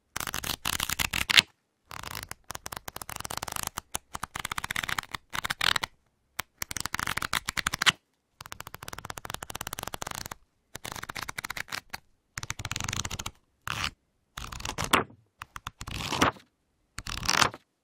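Pages of a paper book flicked through quickly, again and again: each flick a fast run of page-edge ticks lasting up to about two seconds, with short silences between, several ending in a louder flap as the last pages fall.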